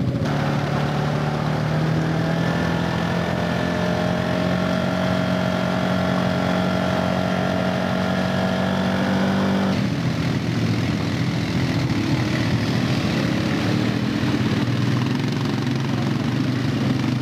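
ATV engines working under load in deep mud. For about the first ten seconds one quad's engine holds a steady pitch that creeps slightly upward, then the sound changes abruptly to several quads running together, rougher and noisier.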